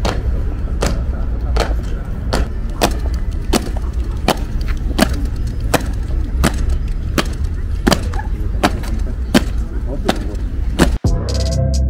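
Soldiers' boots striking stone paving in step as an honour guard marches, a sharp heel strike about three times every two seconds, over a steady low rumble. Near the end the sound drops out for a moment and music begins.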